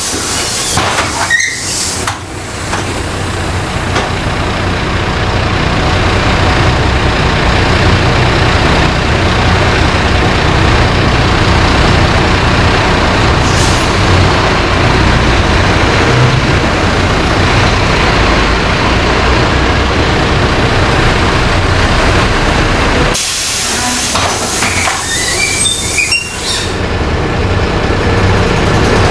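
LiAZ-5292.20 city bus under way, heard from inside the passenger cabin: a steady engine drone with road and body noise. The higher noise drops away briefly twice, near the start and about three quarters through.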